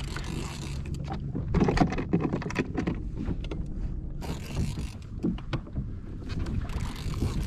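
Water sloshing around a kayak and wind on the microphone, a steady low rumble, with scattered light clicks and knocks.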